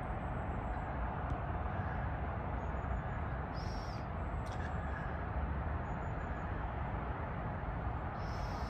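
Steady city ambience: a constant low rumble of distant traffic. A couple of brief, faint high-pitched chirps come through it, one about four seconds in and one near the end.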